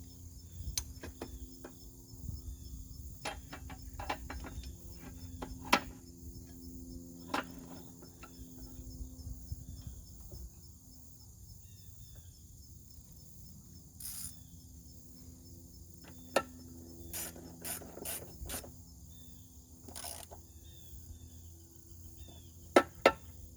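Scattered metal clicks and clanks of a mower blade being fitted and bolted on, with ratchet clicking as it is tightened, and the loudest pair of sharp clacks near the end. Crickets chirp steadily throughout.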